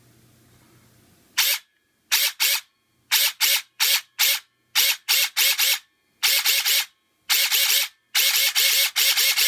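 A&K PTW-clone airsoft rifle's Etiny motor and gearbox cycling in a rapid string of short trigger bursts. There are well over a dozen, mostly a fraction of a second each, with a few longer ones near the middle. Each burst ends in a short falling whine as the motor spins down.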